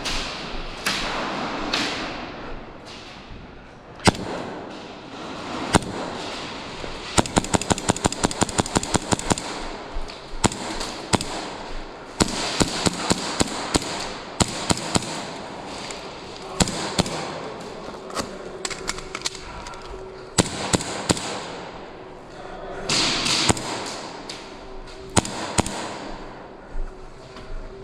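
Airsoft guns firing in a game: sharp single shots scattered throughout, and a rapid automatic burst of about six shots a second lasting a couple of seconds, about seven seconds in.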